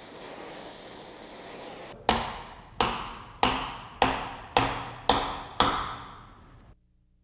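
A brazing torch flame hisses steadily for about two seconds. Then come seven hammer blows about two-thirds of a second apart, each ringing briefly, as a brazed quarter-inch aluminum plate is bent over in a vise to test the joint.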